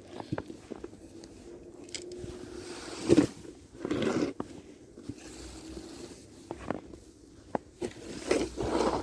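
Irregular crunching and scraping in packed snow, with louder crunches about three and four seconds in and again near the end.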